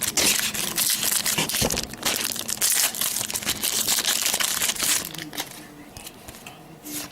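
Trading-card pack wrapper being torn open and crumpled in the hands: a dense crinkling for about five seconds that then dies down, with one more short crinkle near the end.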